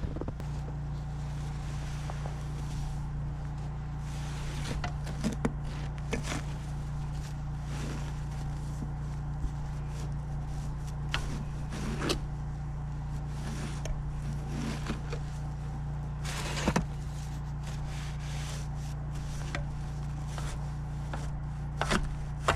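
A steady low machine hum, with short scrapes and knocks scattered over it.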